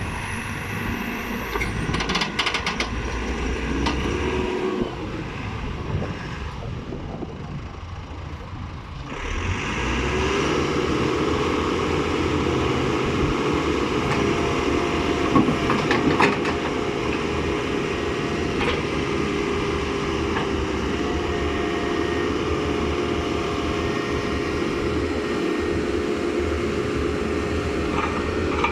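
Caterpillar 426C backhoe loader's diesel engine running. About ten seconds in it becomes louder and holds a steady, higher tone.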